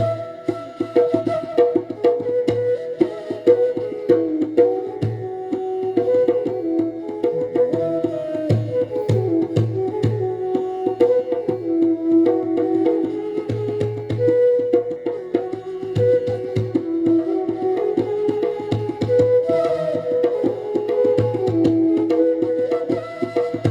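Indian instrumental music: a stepping melody line played over steady tabla strokes, with the deep bass drum sounding in repeated groups.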